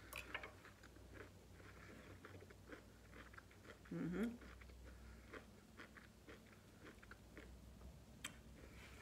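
Faint close-up chewing of a mouthful of asparagus: soft, wet mouth clicks and light crunches. A brief rising hum of the voice comes about four seconds in, and a single sharp click sounds near the end.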